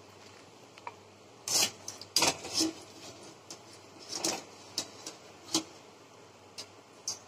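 Wire-mesh frying strainer knocking and clinking against the rim of a metal kadai as fried momos are scooped from the oil, a series of sharp taps with the loudest cluster about two seconds in and lighter ones after.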